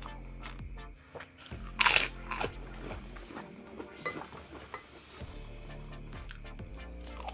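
Biting into a crisp fried kerupuk cracker: two loud crunches about two seconds in, followed by fainter crunching.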